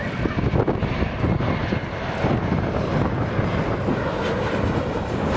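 Jet engines of a Boeing 737 airliner on final approach with its landing gear down: a steady, loud rushing noise with a fluttering low rumble.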